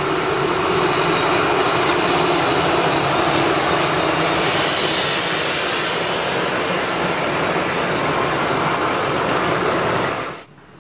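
Alstom AD24C diesel-electric locomotive running loud and steady as it passes, with its passenger coaches rolling along the rails behind it; the sound cuts off abruptly near the end.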